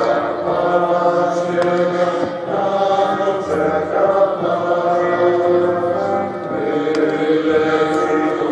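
A choir singing a Greater Poland insurgents' battle song in long, held chords.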